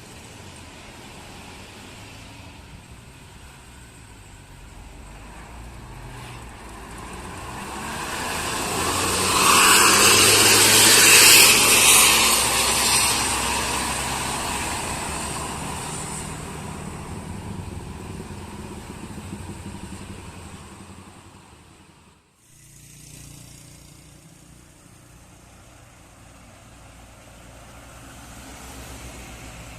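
A road vehicle passes close by: engine and tyre noise swell to a loud peak about ten seconds in, then fade away. About twenty-two seconds in the sound briefly drops out, then quieter traffic noise follows.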